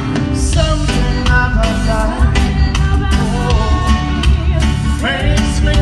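Loud amplified band music with a heavy bass line and evenly repeating drum hits, and a voice singing over it.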